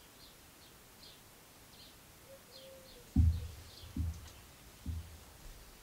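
Small birds chirping faintly in the background. About three seconds in come three dull knocks roughly a second apart, the first the loudest, from the lathe's collet chuck being turned by hand under a dial test indicator.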